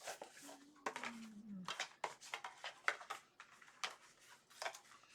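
Plastic DVD cases being handled and sorted, a run of light clicks and knocks, with a brief low hum that falls in pitch about a second in.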